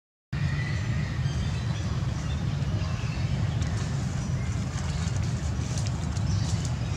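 Wind buffeting the microphone with a steady low rumble, and a few faint high chirps over it. It cuts in after a brief silence at the very start.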